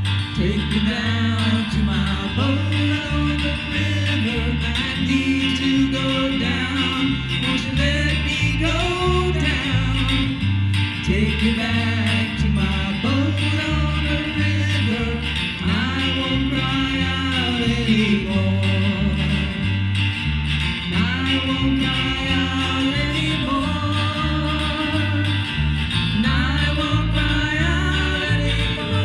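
A live guitar duo: an acoustic guitar strummed over a steady bass-guitar line, with a voice singing the melody.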